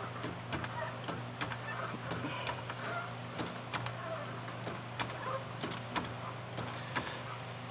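Sharp metallic clicks at an uneven pace, about two a second, from hand tools at work on the car's mounting bolts, over a steady low hum.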